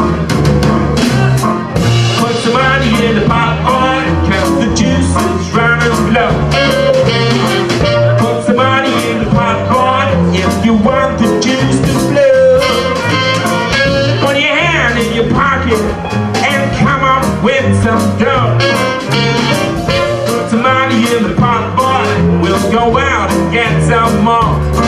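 Live swing jazz band playing an uptempo blues-based number, loud and steady throughout.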